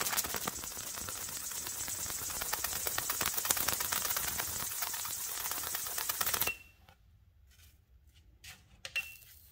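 10,000-volt DC plasma discharge between copper ring electrodes crackling and hissing steadily, a dense run of rapid snaps, as the glow is driven around the ring by the magnet's field. It cuts off suddenly about six and a half seconds in, followed by a few short faint clicks near the end.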